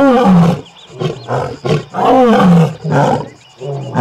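African lions roaring: two long roars that fall in pitch, one at the start and one about two seconds in, each followed by shorter grunting calls.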